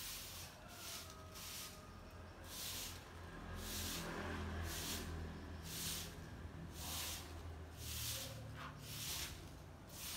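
Soft broom sweeping wet tiles: a run of short swishing strokes, about one a second, over a low hum.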